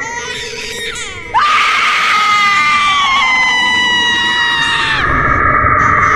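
A person screaming. After a second of quieter, falling cries, a loud, high-pitched scream breaks in suddenly and is held for several seconds, slowly sinking in pitch, and another held scream follows near the end.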